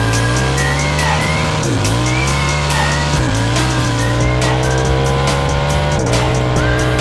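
Engine of a 100 hp 4x4 Power Wheels ride-on at full throttle in a drag-race run, revs climbing and dropping at each upshift as it works up through the gears.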